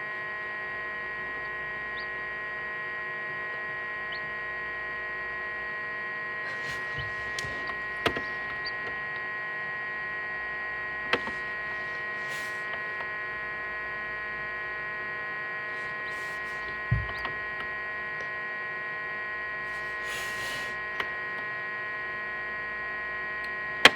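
Egg incubator's steady electric hum, made of several unchanging tones, with a few sharp knocks or taps about eight, eleven and seventeen seconds in.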